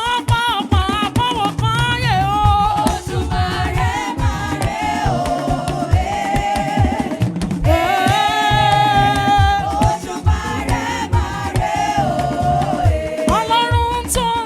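Gospel praise music: a voice sings long held, slightly wavering notes and quick runs over a steady drum and percussion groove.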